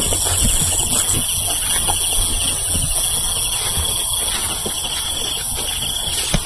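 Footsteps and rustling as someone walks through tall, dry grass and brushes it aside, over a steady high chorus of night insects.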